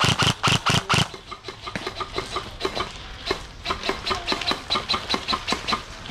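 Airsoft guns firing in steady strings of shots, about four or five a second: a loud run that stops about a second in, then fainter shots keep going at a similar pace.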